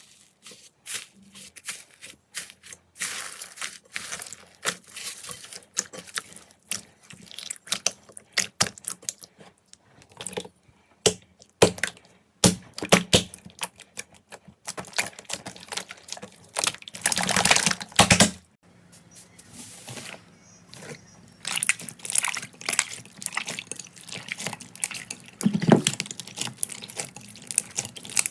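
Slime being squeezed and poked by hand, making a run of wet, sticky clicks and pops, with a longer squelch about seventeen seconds in.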